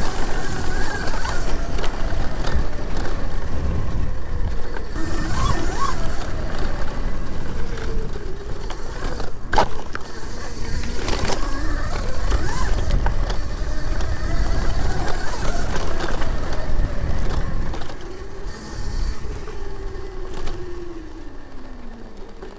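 Razor electric bike riding over a trail: wind and tyre rumble with a motor whine that rises and falls with speed, and a sharp knock about halfway through as it goes over a bump. Near the end it gets quieter and the whine falls as the bike slows.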